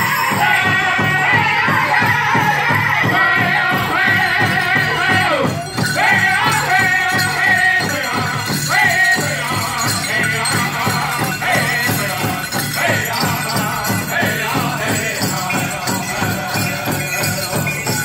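Powwow drum group singing a chicken dance song in high, wavering voices over a steady beat on a big drum, with bells jingling.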